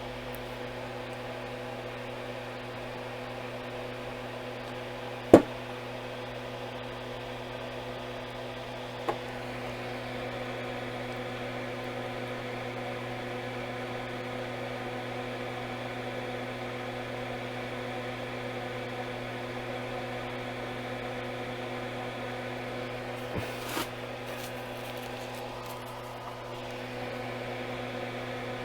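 Steady electrical hum from running bench equipment. A sharp click comes about five seconds in, with a fainter one a few seconds later and two light taps near the end.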